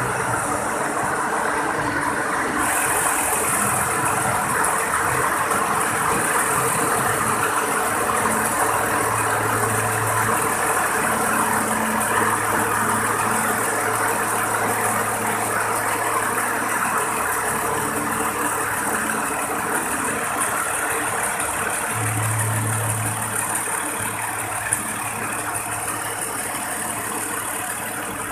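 Industrial faggoting sewing machine running with a steady mechanical hum and whir; a higher hiss joins about three seconds in and holds.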